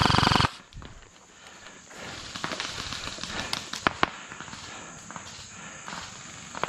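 Airsoft rifle firing a rapid full-auto burst that cuts off about half a second in. Scattered light clicks and knocks follow, with one sharp crack about four seconds in. Another rapid burst starts right at the end.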